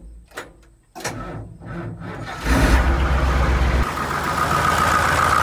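A few clicks, then a tractor engine cranks over and catches about two and a half seconds in, running steadily and loudly with a high whine.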